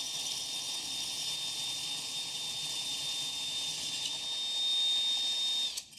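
DeWalt 20V cordless drill running steadily with a high motor whine, its old 3/8-inch bit boring into soft pumice rock. It stops abruptly near the end.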